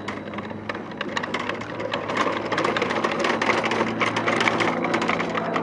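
Dense, rapid mechanical clatter over a steady low motor hum, slowly growing louder.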